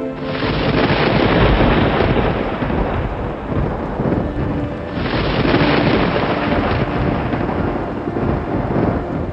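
Thunder rumbling over steady rain, swelling soon after the start and again about five seconds in.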